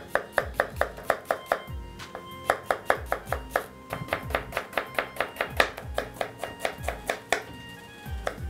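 A knife slicing a red onion on a plastic cutting board in quick, even strokes, about four or five a second, stopping about a second before the end. Background music with a steady beat plays underneath.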